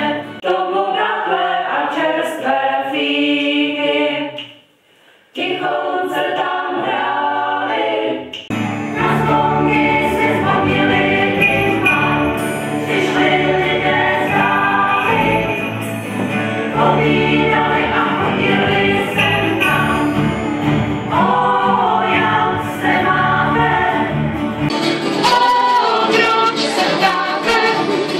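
Small mixed choir, mostly women's voices, singing with acoustic guitar accompaniment, in spliced live recordings: the sound drops out briefly about five seconds in, and from about eight seconds in a fuller accompaniment with deep bass notes joins the voices.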